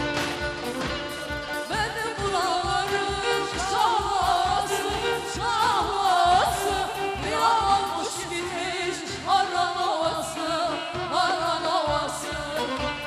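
Turkish folk-style music: a voice sings a wavering, heavily ornamented melody over a steady drum beat.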